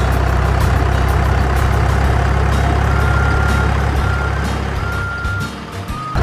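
Heavy truck engine running steadily, a sound effect laid over the picture rather than noise from the toys, with several short high steady tones in the second half. The engine sound dips briefly just before the end.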